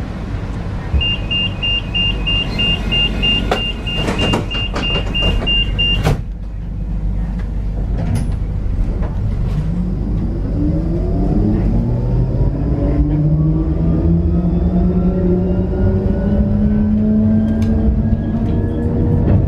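Tram door-warning beeps, a fast high-pitched beeping for about five seconds that stops with a short knock as the doors close. A few seconds later the tram pulls away, and its traction motor whine rises steadily in pitch as it accelerates over the rumble of the running gear.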